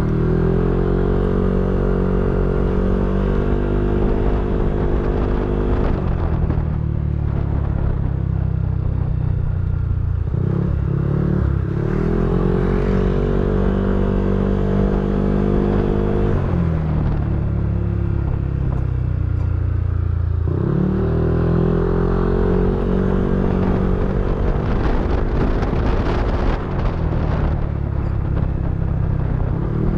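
Yamaha NMAX v3 scooter's single-cylinder engine through a TSMP 2.5 aftermarket exhaust, opened up three times. Each time the note climbs, holds steady for several seconds, then drops back to a lower running note.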